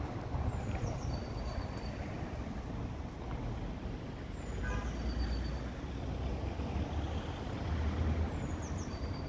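Steady low outdoor rumble of street background. Over it a bird repeats a short high phrase three times, about every four seconds: a quick falling note, then a brief held whistle.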